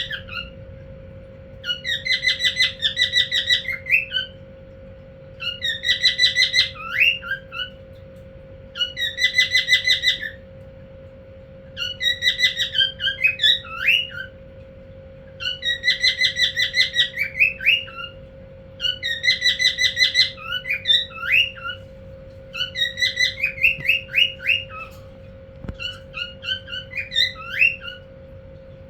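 Male cockatiel calling to a female: repeated phrases of rapid chattering notes, each ending in a few short upward whistles, about every three and a half seconds. A steady low hum runs underneath.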